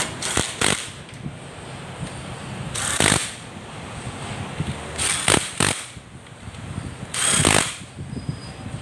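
Handheld cordless power tool run in short bursts: a quick cluster at the start, one about three seconds in, two quick ones about five seconds in and a longer one about seven seconds in.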